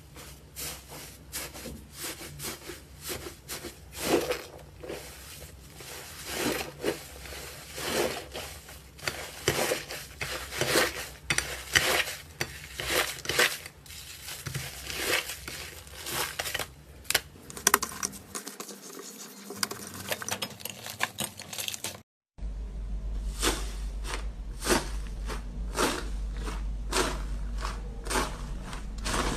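Slime being squeezed, poked and stretched by hand, giving quick irregular clicks and pops several times a second. After a short break about 22 seconds in, the clicking goes on over a steady low hum.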